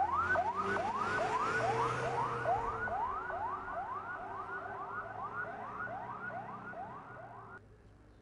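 Ambulance siren in a fast yelp, about three rising sweeps a second, over the noise of the vehicle driving past. It is loudest at first, fades as the ambulance moves away, and cuts off abruptly near the end.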